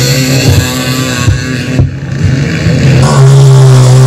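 Quad (ATV) engines revving at high throttle. About two seconds in the sound breaks off briefly, then one quad's engine holds a steady high rev under load as it climbs a sand hill.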